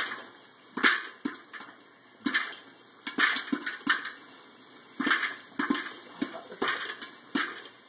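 Popcorn kernels popping inside an electric stir-type popcorn popper with a clear dome lid: more than a dozen sharp, irregular pops, some in quick pairs.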